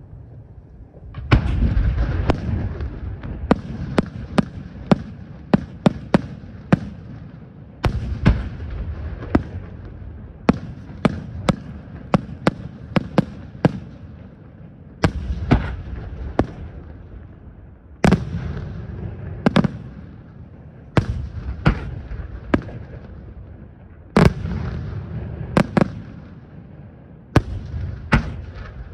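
Aerial firework shells from a professional pyrotechnic display bursting in quick succession: sharp loud bangs one to three a second. A heavier burst comes every few seconds, each followed by a rumble that dies away.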